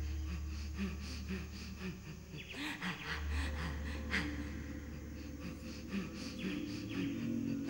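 Low sustained drone from the dance score, with repeated breathy gasps and panting over it; the drone drops out briefly about two and a half seconds in.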